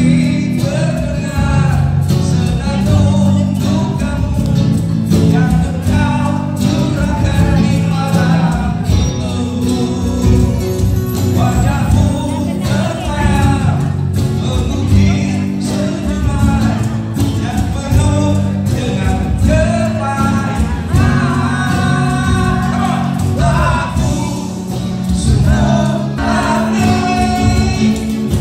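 A band playing a song with singing over sustained chords and bass.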